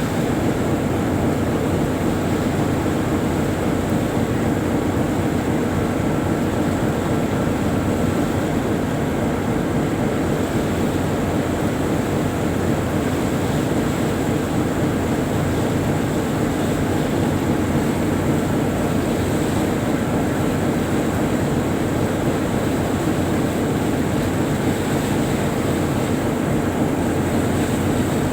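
Tugboat's diesel engines running steadily under way, a constant low drone with no change in speed.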